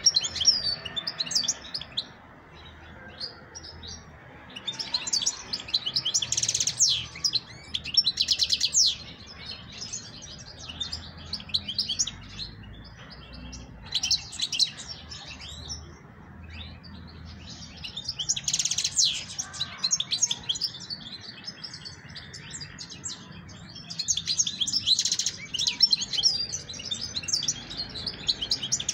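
A European goldfinch singing: bouts of fast, high twittering and trills, each a few seconds long, separated by short pauses.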